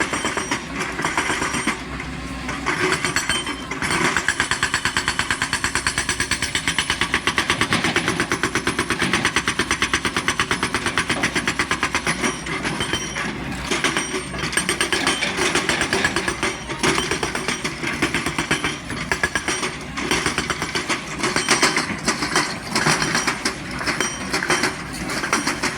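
XCMG hydraulic excavator's diesel engine running hard with a rapid, even pulsing rattle.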